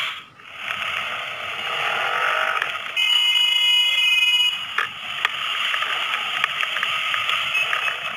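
Steady road and wind noise picked up by a dashcam. About three seconds in, a high, steady electronic-sounding tone holds for about a second and a half, then a single sharp knock.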